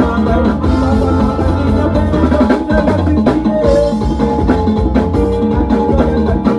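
Music with a drum kit playing a beat under sustained pitched instruments.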